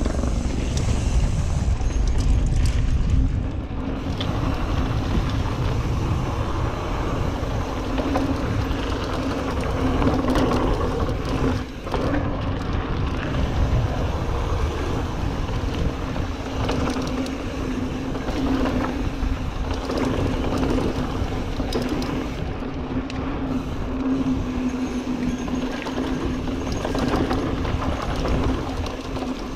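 Mountain bike descending a dirt trail at speed: wind buffeting the camera's microphone, tyres rolling over loose dirt and the bike rattling over bumps, with a steady hum through most of it.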